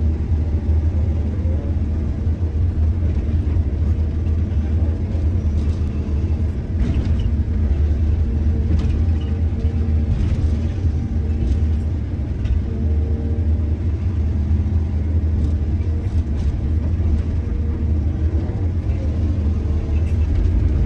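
Heavy diesel engine of a mining excavator running steadily with a deep rumble, with occasional faint knocks.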